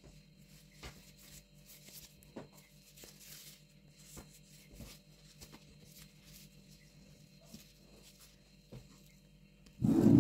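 Faint rustling and small ticks from gloved hands handling stacked sponge cake layers, over a steady low hum. Near the end, a heavy cut-crystal glass bowl is set down on the table with a loud dull knock.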